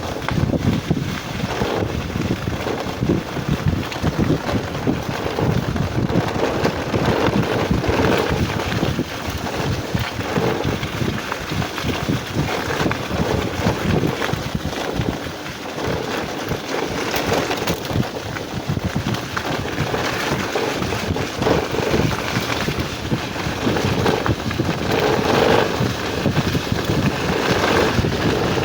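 Wind buffeting the microphone: a continuous rushing noise that rises and falls in gusts.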